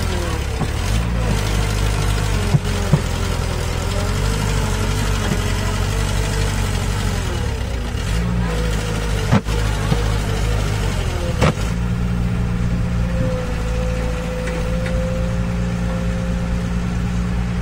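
Excavator's diesel engine running steadily, with a wavering whine above it and a few sharp clanks. Its note shifts about two-thirds of the way through.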